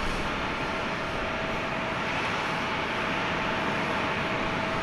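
Jet airliner noise on the apron during an Airbus A350-1000's pushback: a steady rushing hiss with a constant whine held on one pitch.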